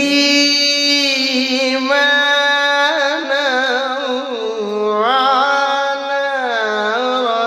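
A man's voice reciting the Quran in melodic tilawat style: one long phrase held on a sustained note, with wavering melismatic ornaments, stepping down lower about halfway through.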